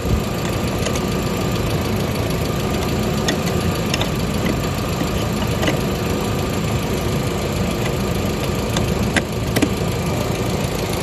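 1999 VW Passat 1.8T's turbocharged four-cylinder engine idling steadily, running again after a crank-but-no-start fault was cured by resoldering its relay. A few light clicks and taps sound over it at irregular moments.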